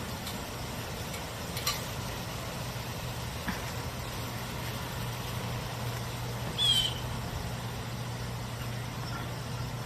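Steady low mechanical hum like an idling engine. A faint click comes near two seconds in, and a short high chirping squeak about seven seconds in.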